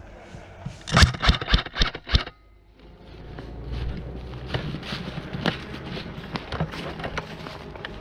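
An airsoft gun firing a quick string of about six sharp shots, about a second in. Close rustling and scraping follow, with scattered clicks.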